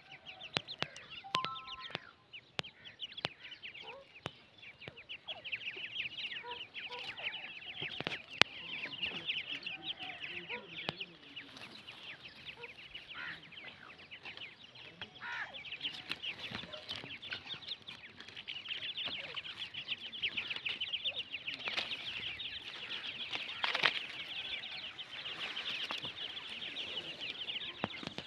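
Grey francolin chicks cheeping almost without pause in rapid, high, thin peeps, with the hen's softer, lower calls now and then. A few sharp ticks come through, the loudest about eight seconds in.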